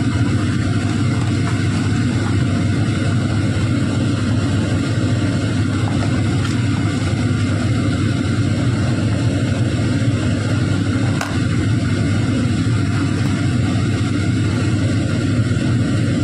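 A steady mechanical hum, like a small motor or fan running, even throughout and heaviest in the low range.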